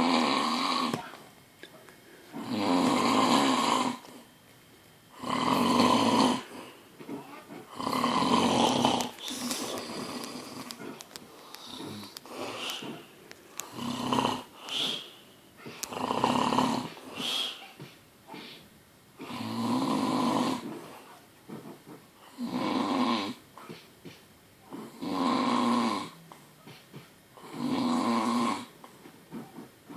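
A person snoring loudly: long snores repeating about every two and a half to three seconds, with a run of shorter, uneven snorts in the middle.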